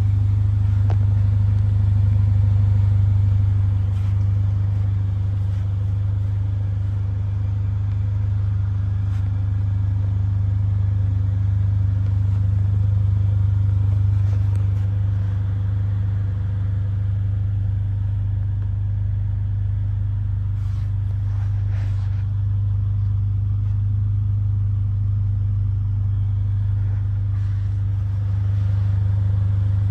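Mercedes-AMG A45's 2.0-litre turbocharged four-cylinder engine idling steadily, an even low hum, with a couple of faint clicks around twenty seconds in.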